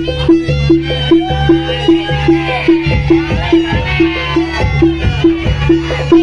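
Live jaranan (kuda lumping) ensemble music: a struck metallic note repeating about three times a second over a low steady drone, with a wavering, bending melody line coming in about a second in.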